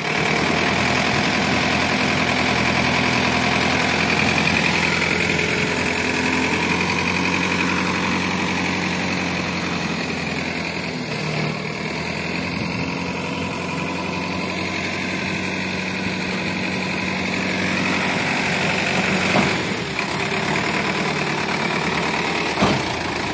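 Sonalika DI 750 tractor's diesel engine running steadily while it powers the hydraulic tipper raising the loaded trailer bed, with a couple of dull thumps near the end as the load slides off.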